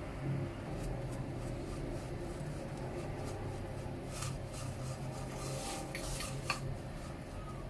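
Light rubbing and scraping handling sounds with a few small clicks, the sharpest about six and a half seconds in, over a steady low hum.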